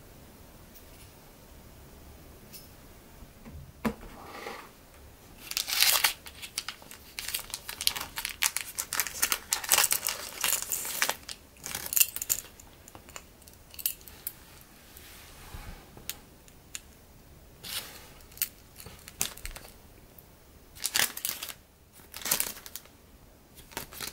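A foil blind-bag packet is torn open and crinkled in dense crackling bursts for several seconds. Then come scattered light clicks and rustles as a small acrylic keychain is handled and set down on a table.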